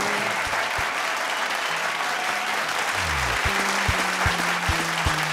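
Studio audience applauding over upbeat background music. A bass line and a steady drum beat come in about three seconds in.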